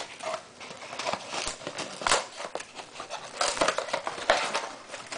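Ragdoll cat mouthing and chewing a dried fish treat on a tile floor: irregular small crunches and clicks.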